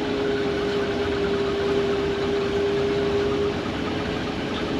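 John Deere combine harvester's engine running steadily, with a steady humming tone over it that fades out about three and a half seconds in.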